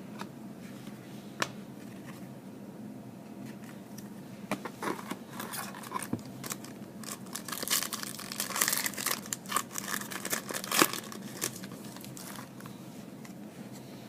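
Foil wrapper of a football card pack being torn open and crinkled, a run of crackles and sharp clicks that starts about four seconds in and is loudest for a few seconds near the end.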